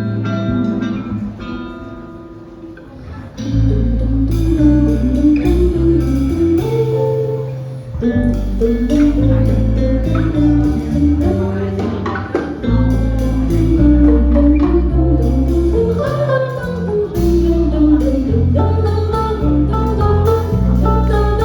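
A quintet of guitar, piano, bass, drums and voice playing. A sparse guitar-led opening fills out about three and a half seconds in, when the bass and the rest of the band come in under a sung melody.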